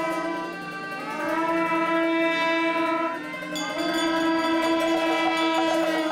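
Wind instruments sounding long held notes together in a reedy, horn-like chord, sliding up into new notes about a second in and changing again around three and a half seconds in.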